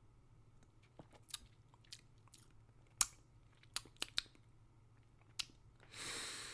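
Faint wet mouth clicks and lip smacks, a handful spread a second or so apart, from someone holding and working a mouthful of wine. A breathy rush of air near the end.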